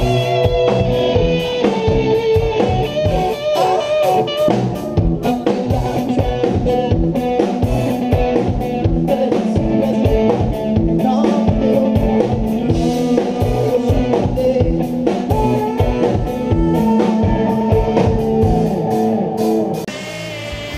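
Rock band playing loud and live: electric guitar, bass guitar and drum kit. Near the very end the music drops to a quieter level.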